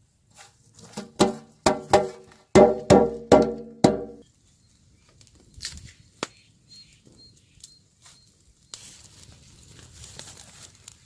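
A quick run of about seven loud, ringing metallic strikes in the first four seconds, like metal knocked against a large steel plate. From about nine seconds a wood fire hisses and crackles.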